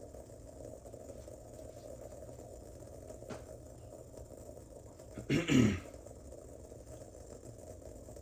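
A person coughs once, about five seconds in: a short, loud throat-clearing cough over a faint steady low hum.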